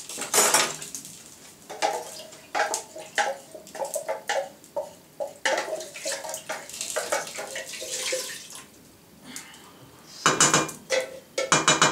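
Metal pot and kitchen utensil clatter: repeated sharp knocks and scrapes as a jar of thick orange liquid is tipped out and scraped into a steel cooking pot, with a denser run of knocks near the end.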